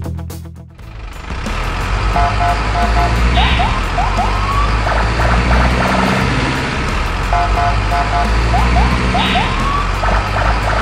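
Background music: a looping tune over a steady low bed, with short blips and quick rising whistles, the phrase repeating about every six seconds.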